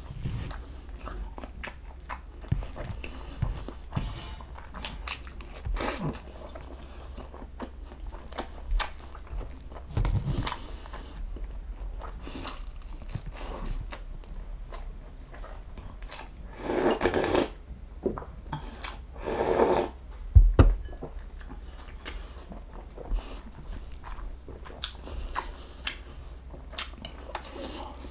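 A person chewing and biting into beef bulalo and ossobuco, with scattered short wet clicks. Two louder, longer mouth sounds come about seventeen and nineteen seconds in, followed by a low thump.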